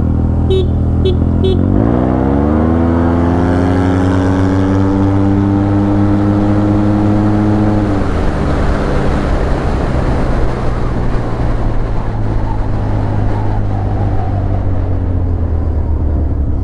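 Three short horn beeps give the start signal. A Yamaha TMAX 530 parallel-twin engine then revs up under full throttle and holds a steady high pitch as the CVT gearbox lets the scooter accelerate, dropping back about eight seconds in when the throttle closes. Riding-speed wind rush continues over a lower engine note.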